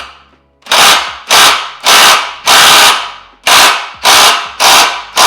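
Impact wrench fired in about eight short, loud bursts, roughly one every half second, hammering at a stuck exhaust bolt that is too tight to come loose.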